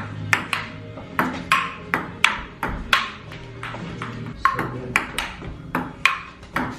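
Table tennis rally: the ball clicks back and forth off the paddles and the table, a little over two hits a second.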